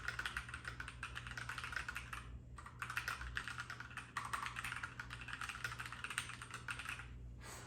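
Typing on a Keychron mechanical keyboard with red linear switches: a dense, continuous clatter of keystrokes, broken by a short pause about two and a half seconds in and stopping just before the end.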